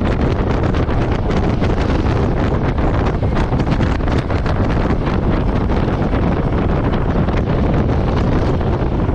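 Wind rushing over the microphone of a moving motorcycle, with the Royal Enfield Meteor 350's single-cylinder engine running steadily underneath at cruising speed.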